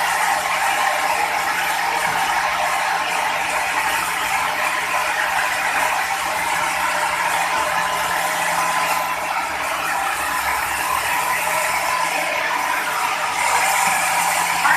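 Sawmill machinery running steadily: a dense, even mechanical noise with a low hum underneath.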